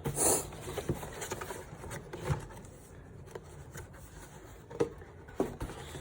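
Packaging being handled during an unboxing: rubbing and scraping, with a short rustle at the start and a few scattered light clicks.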